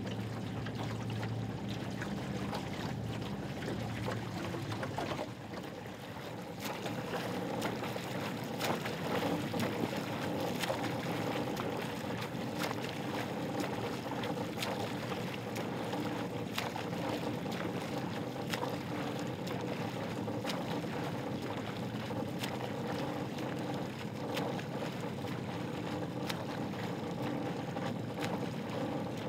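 A small boat's motor running steadily over open river water, with light splashing of water.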